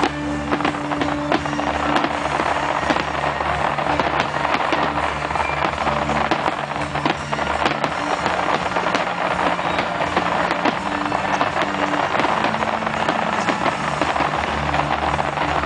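Fireworks display going off continuously: a dense crackle of many small pops and bangs from gold crackling shells. Music plays steadily underneath.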